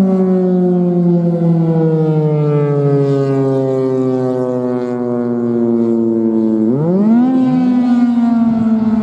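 Federal Signal Thunderbolt 1000 rotating outdoor warning siren sounding, its pitch sliding slowly downward for several seconds, then winding back up sharply about seven seconds in and holding.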